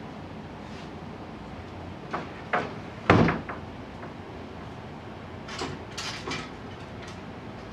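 A few sharp knocks and clacks over a steady faint hiss: three about two to three seconds in, the last one the loudest, then a quick run of lighter clicks around five and a half to six and a half seconds.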